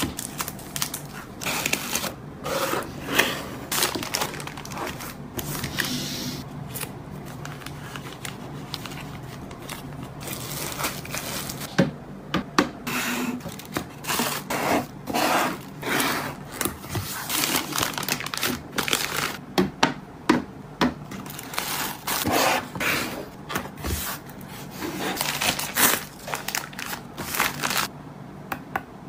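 Hands handling clear plastic sleeves, paper sticker sheets and cards and a cardboard box: irregular crinkling, rustling and light tapping and scraping, in short bursts.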